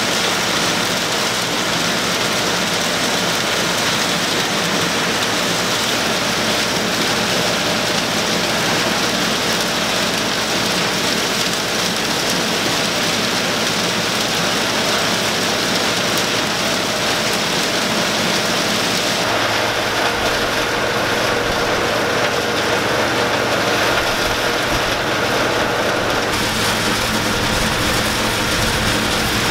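New Holland 28 silage blower running off an Allis-Chalmers 185 tractor's PTO while chopped corn silage pours into it from a forage wagon: a loud, steady rushing din over the tractor engine. About two-thirds of the way through, the rushing thins and a steadier engine hum comes forward.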